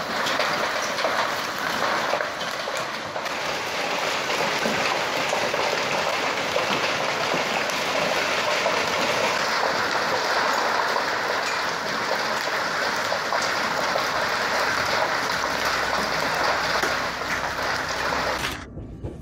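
Heavy wind-driven rain in a violent storm, a steady dense rushing hiss that cuts off suddenly near the end.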